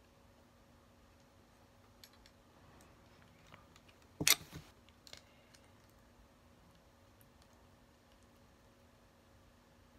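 Plastic clicks and knocks from hands handling a toy action figure, with a louder cluster of knocks a little past four seconds in and two more about a second later, over a faint steady hum.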